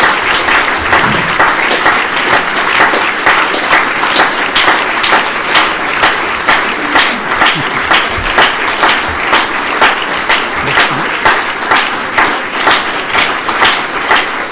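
An audience applauding, a dense clatter of many hands clapping, which settles into an even rhythm of about two claps a second in the second half.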